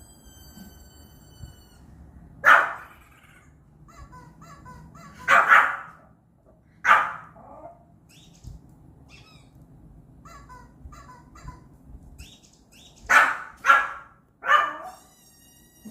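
A Pomeranian barking: about six sharp, high barks, three spaced a couple of seconds apart and then three in quick succession near the end. Between them, faint chirping electronic sounds come from the TV that set it off.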